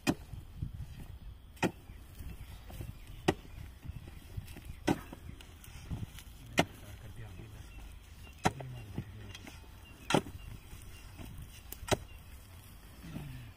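Hoe blade chopping into dry, clod-strewn soil to dig up onions, about eight evenly spaced strikes, one every second and a half to two seconds.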